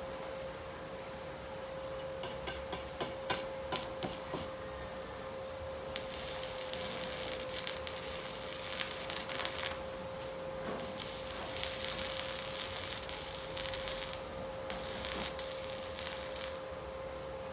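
Metalwork at a stick-welding station: a quick run of sharp metallic taps, then three stretches of dense crackling, hissing noise a few seconds each, over a steady high hum.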